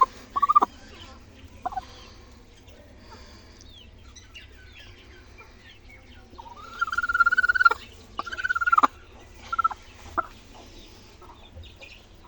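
Chickens calling in the poultry pen: a few short calls, then two longer drawn-out calls a little after the middle, with faint chirping behind.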